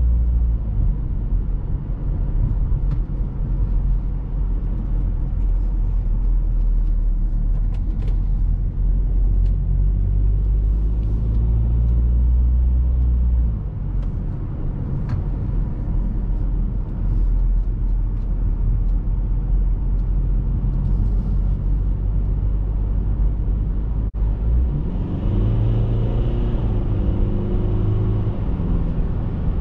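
Cabin sound of a BMW X3 F25 2.0d on the move: a steady low rumble of the four-cylinder diesel engine with tyre and road noise. Near the end the engine note rises in pitch as the car accelerates.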